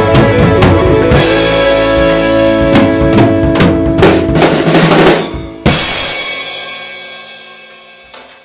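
Drum kit played along to a backing track, then a last loud hit about five and a half seconds in that rings and slowly fades out as the song ends.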